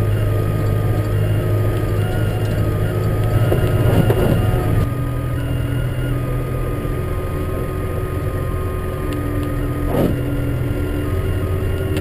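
Tractor engine running steadily, heard inside the cab while ploughing snow with a front-mounted plough. The engine note drops about five seconds in, and there is a single sharp knock near the end.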